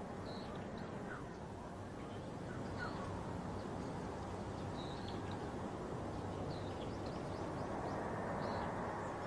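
Faint, scattered short bird chirps over a steady background hiss of outdoor ambience.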